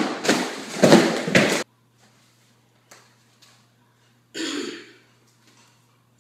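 Tablecloth yanked off a table along with what is on it: a loud rustling clatter with several sharp knocks, cut off abruptly about a second and a half in. A short throaty, cough-like noise follows about four and a half seconds in.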